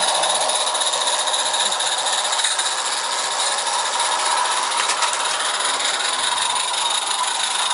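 Garden-railway model locomotives running on their track: a steady, rapid mechanical buzz with hiss.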